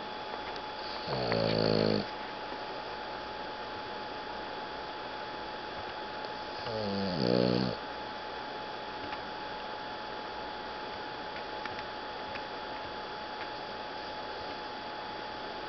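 A napping Boston Terrier snoring: two loud snores of about a second each, one about a second in and one about six and a half seconds in, then no more snoring over a faint steady hum.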